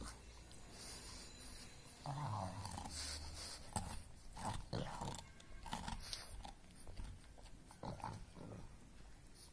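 Pug gnawing a raw carrot: a string of short crunching bites and clicks. About two seconds in, the dog makes a low grunting noise that lasts a second or so.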